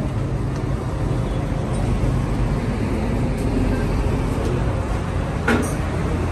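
Steady low background rumble, with a single sharp clank about five and a half seconds in.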